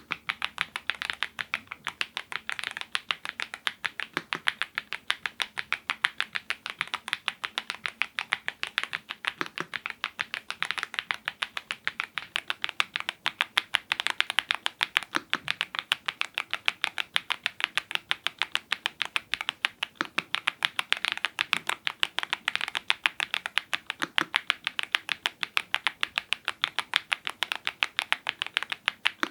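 Fast, steady typing on a YUNZII IF99 full-size mechanical keyboard with lubed Gateron Zero switches: a continuous run of sharp keystroke clacks, several a second.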